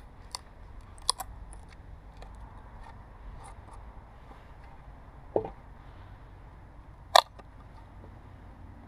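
Knife blade cutting a notch in split dry wood: a few scattered sharp clicks and snaps as the blade bites into the wood and chips come away, the loudest about seven seconds in.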